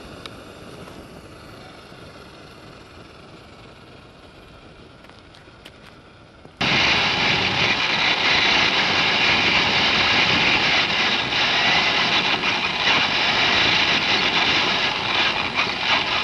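Traxxas E-Maxx electric R/C monster truck driving, picked up through its onboard camera: a loud, steady motor and drivetrain whir that starts abruptly about six and a half seconds in, after a quieter stretch of low steady noise.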